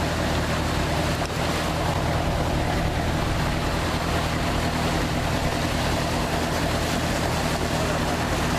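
Ship's diesel engines running steadily with a low, even hum, over a continuous wash of water.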